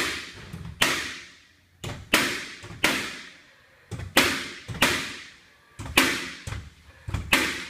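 Nails being driven into MDF molding on a wall: about nine sharp strikes, roughly one a second and often in pairs, each with a short ringing tail.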